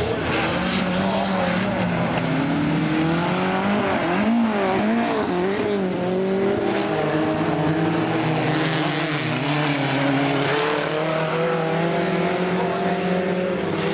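Several folkrace cars racing hard on a gravel track, their engines revving up and down together through the bends, with some tyre squeal.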